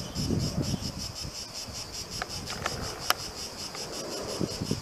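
Insects chirring in a fast, even pulsing, with a few short clicks and some low rumble beneath.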